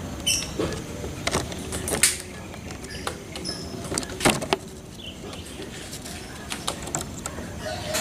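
Irregular knocks, taps and scrapes from a white dove moving about on its perch and against the cage close to the microphone, loudest about two seconds in and just after four seconds, over a steady background hum.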